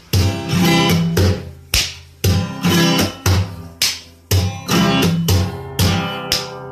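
Background music: a guitar plucking a rhythmic run of sharp, quickly fading notes, two to three a second.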